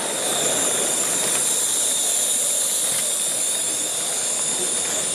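Large-scale model freight train running on a curve of track: a steady rolling rush of wheels on rails with a thin, high whine held throughout.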